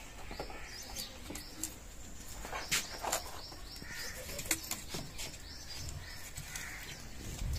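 Faint snaps, crackles and rustles of thin dry twigs being broken and pushed into a clay wood-fire stove, with birds chirping now and then in the background.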